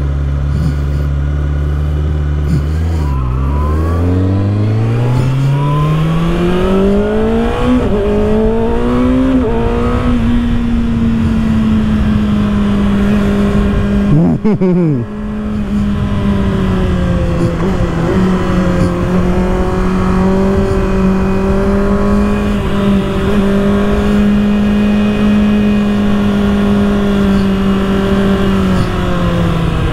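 2024 Kawasaki ZX-6R's inline-four engine pulling away from low speed, rising steadily in pitch through the gears over several seconds, then holding a steady cruise with wind and road noise. About halfway through there is a brief sharp sweep in pitch, and near the end the engine note falls away as the bike slows.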